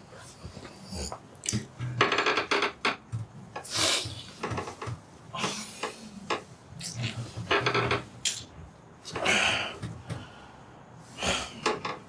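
A man groaning and breathing hard in irregular bursts, with his clothes and the bedding rustling as he stirs.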